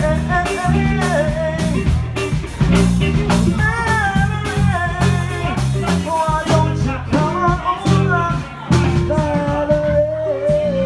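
Live function band playing an upbeat pop-soul number: drums, bass and guitar, with a singer's voice held over the top.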